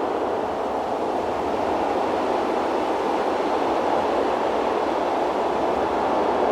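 Steady rushing wind noise on the microphone of a GoPro Hero8 carried by an FPV drone flying into strong wind, even and unbroken throughout.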